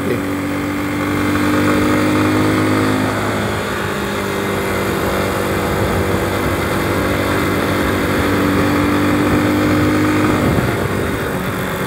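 Motorcycle engine running steadily at road speed, with wind rushing across it. The engine note shifts about three seconds in and again near the end.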